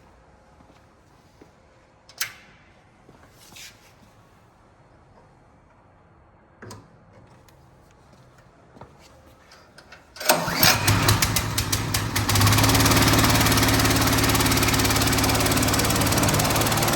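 The engine of a JCB CH75100P wood chipper starting about ten seconds in, sputtering unevenly for a couple of seconds, then settling into a steady run. Before it starts there are only a few scattered clicks and knocks.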